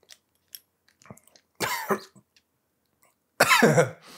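A man coughing and clearing his throat twice, about a second and a half in and again near the end, from the burn of neat habanero shrub he has just tasted. A few faint clicks of the dropper bottle come at the start.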